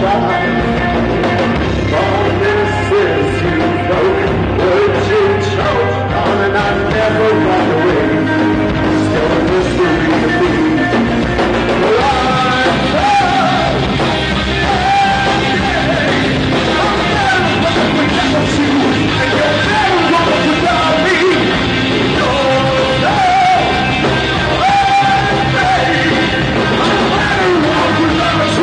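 A rock band playing live: electric guitar, bass and drums with a sung vocal line, the singing standing out more from about twelve seconds in.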